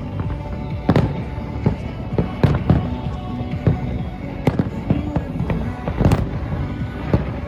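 Aerial fireworks shells bursting in a string of sharp, irregular bangs, the heaviest about one to two seconds apart, with music playing underneath.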